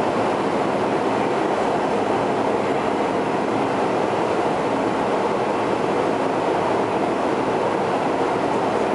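Steady cabin noise of a Bombardier CRJ-200 in flight: an even rushing roar from its two rear-mounted GE CF34 turbofans and the air streaming past the fuselage, unchanging throughout.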